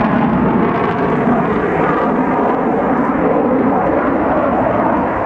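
Russian fighter jet's engines heard from the ground during a display flight overhead: a loud, steady jet noise with no sharp changes.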